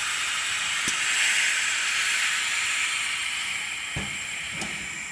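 Steady hiss of compressed air from the pneumatic actuator closing the inner lid of a Krantz 120 cm extractor, with a click about a second in and a knock about four seconds in as the lid mechanism moves. The hiss fades away toward the end.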